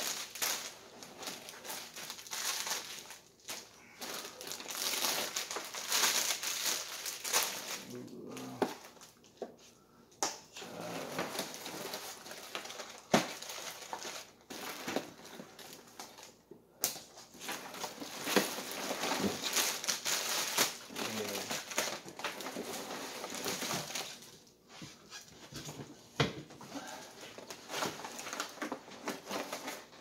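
Plastic grocery packaging crinkling and rustling as bagged salads and plastic containers are pulled out of a duffel bag and set down on a wooden table, with a few sharp knocks.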